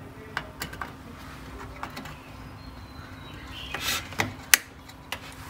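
Light clicks and taps of hands working inside a desktop PC case. About four seconds in comes a cluster of clicks ending in one sharp snap as a RAM module is pressed down into its motherboard slot.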